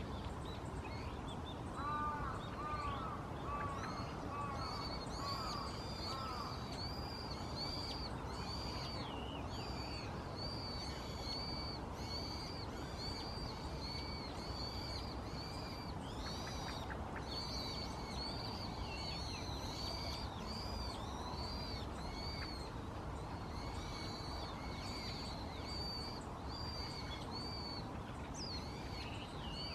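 Brown-headed thrush, which the uploader takes with some doubt for the large Kuril race (オオアカハラ), calling a short high arched note about twice a second, over and over. Between about two and six seconds in, a few lower notes are mixed in. The calling is perhaps a territorial declaration.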